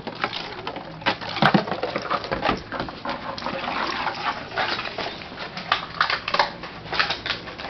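A pug playing, with fast irregular crackling and rustling from about a second in until near the end.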